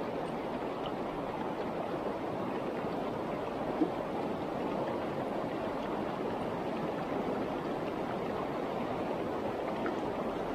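River water rushing steadily over a stony riverbed, with a single brief click about four seconds in.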